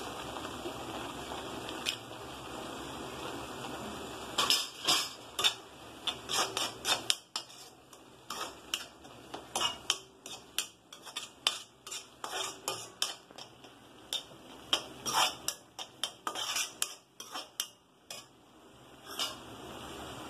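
A steel ladle stirring thick masala paste in a metal kadai: irregular clinks and scrapes of metal on metal, several a second, starting about four seconds in and running until near the end. Under them is a soft steady sizzle of the paste frying in oil.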